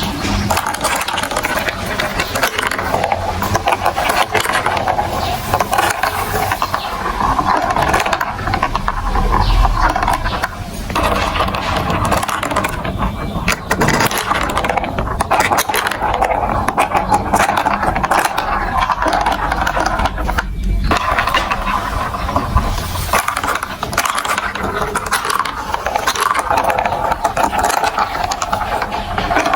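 Many marbles rolling and clattering through plastic building-block marble-run tracks, a dense, continuous rattle of small clicks with brief dips about eleven and twenty-one seconds in.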